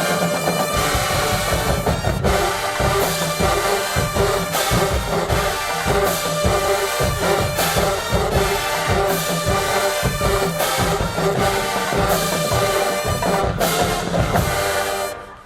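HBCU marching band playing: a brass section over a drumline keeping a steady beat. The band cuts off sharply near the end.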